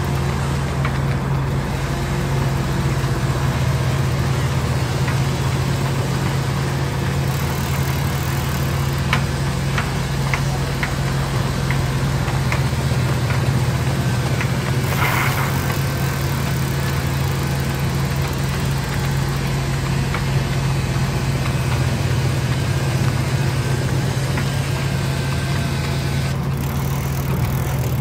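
Vertical band resaw in a sawmill running steadily with a constant low motor hum as wooden boards are fed through the blade. A few light clicks and a brief scrape break the drone partway through.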